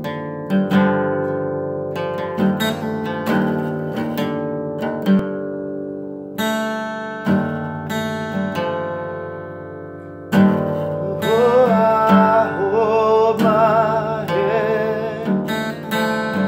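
Opening of a song: a plucked string instrument plays note by note, each note ringing and fading. About ten seconds in the music gets louder and a wavering melody line with vibrato comes in over it.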